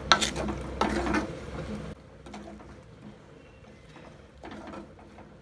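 Metal spoon stirring and scraping wet chopped spinach against the inside of a clay pot: several rough scraping strokes over the first two seconds, then only a few faint scrapes.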